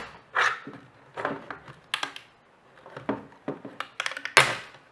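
Hard plastic of a cheap computer speaker's enclosure being handled and pried: a series of clicks and scrapes, then one loud sharp crack about four and a half seconds in.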